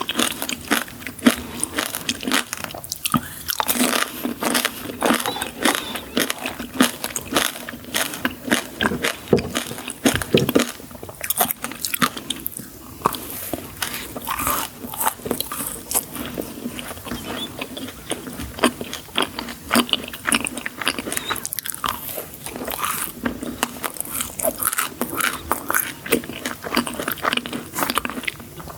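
Close-miked eating of sweets: biting, crunching and chewing, with many sharp irregular crunches throughout.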